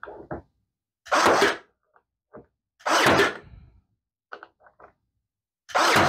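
Ryobi AirStrike cordless nailer firing three nails into hardwood blocks, one shot every couple of seconds, each a short sharp burst; the third comes near the end. Faint small clicks of handling between shots.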